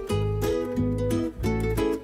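Background music: plucked string notes over a bass line, changing notes every fraction of a second.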